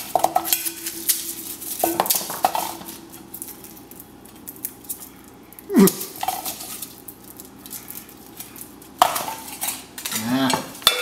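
Garlic cloves being pulled apart by hand and dropped into a stainless-steel mixing bowl, making scattered light knocks and clinks on the metal. There is a louder knock about six seconds in, and more bowl handling near the end.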